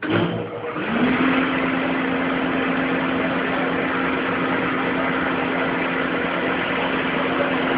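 Wood planer switched on: its motor starts suddenly, winds up in pitch over about the first second, then runs at a steady hum with the cutterhead's noisy whir.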